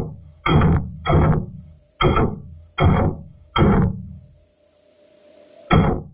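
Orion capsule's attitude-control thrusters firing in a series of short pulses heard inside the spacecraft: five sharp pulses in the first four seconds, each dying away within half a second, then a pause and one more near the end. A steady faint hum runs underneath.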